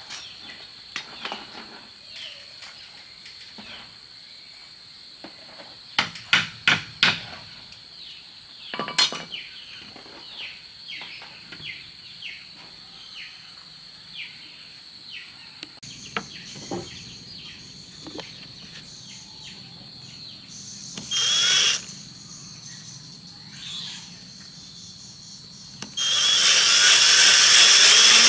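Woodworking: sharp knocks of wood, four in quick succession about six seconds in and one more a couple of seconds later, then a power tool starts near the end and runs loud and steady. Underneath there is a steady high insect drone and short falling chirps.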